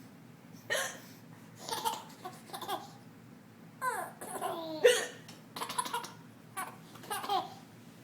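A woman hiccuping, several short, sharp hiccups roughly a second apart, and a baby laughing between them.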